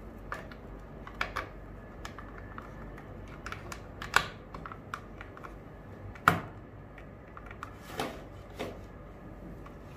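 Irregular plastic clicks and taps as a round mini-DIN cable plug and wires are handled and pushed into the socket of a controller board's plastic case. The sharpest clicks come about four and six seconds in.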